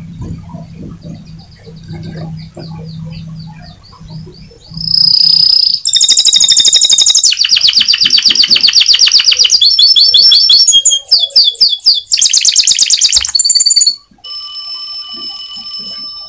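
Domestic canary singing: soft, quick chirps at first, then about five seconds in a loud, fast trilling song of rapidly repeated notes that switches phrase several times over about nine seconds. Near the end the song stops and a steady electronic tone sounds.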